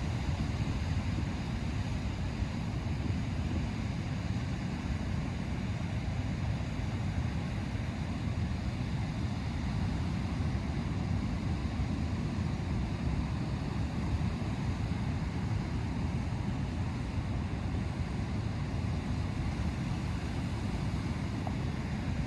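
Ocean surf and wind, with wind rumbling on the microphone: a steady low rush with no distinct single wave break standing out.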